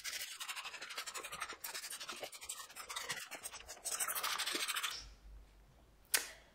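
Hand sprayer spraying lukewarm water onto an engine block to rinse off degreaser: a steady hiss that stops about five seconds in. A single short click comes near the end.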